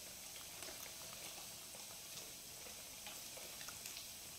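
Balls of food frying in hot oil: a faint steady sizzle with scattered small crackles.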